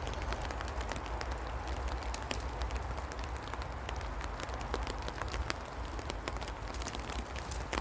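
Heavy rain falling steadily, with many single drops landing as sharp ticks, over a low rumble.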